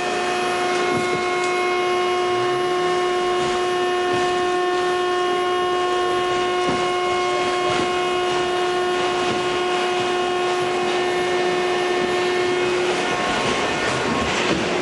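Westinghouse R68 subway car pulling out of a station and running, heard from inside the car: a steady whine of several tones over the running rumble. The whine cuts out about thirteen seconds in, leaving louder, rougher wheel-and-rail noise.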